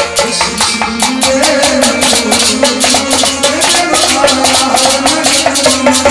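Kashmiri folk music: goblet drums (tumbaknari) beat a fast, steady rhythm under a held keyboard melody.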